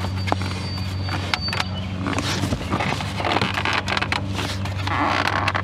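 Plastic dash trim being worked loose by hand: irregular sharp clicks and short scrapes, with a louder scrape about five seconds in, over a steady low hum.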